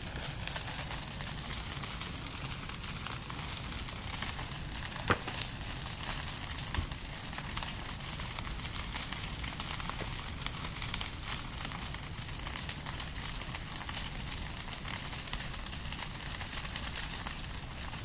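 Firewood burning: a steady hiss with constant fine crackling, a sharp pop about five seconds in and a smaller one a couple of seconds later.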